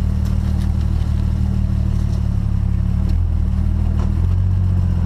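Off-road vehicle's engine running steadily at low revs, its pitch shifting slightly about three seconds in.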